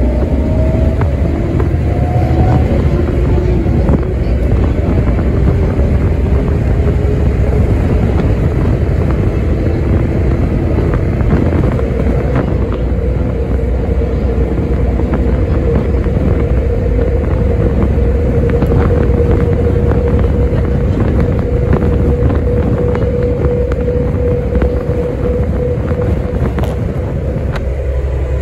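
A 1990s Sydney bus heard from inside its cabin while travelling at speed: steady engine and road rumble with a whine held at one pitch that edges slightly higher in the second half, and scattered light rattles.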